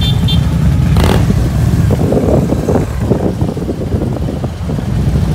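A line of touring motorcycles riding slowly past, engines running with a steady low rumble, with a short rushing burst of noise about a second in.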